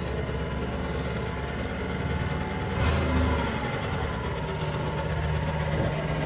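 Propane-fuelled Daewoo G25S forklift engine running steadily at low revs while it holds a raised load, with a single knock about three seconds in.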